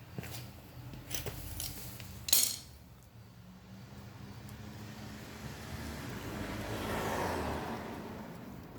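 Small metal clicks and clinks of hand tools working on a small-engine carburetor to remove its pilot jet, the loudest clink about two and a half seconds in, over a steady low hum. Near the end a rush of noise swells and fades.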